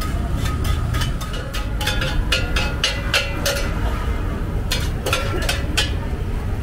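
Quick, irregular metallic clinks and taps of utensils and dishes at a street-food stall, some with a short ring, over a steady low rumble of traffic.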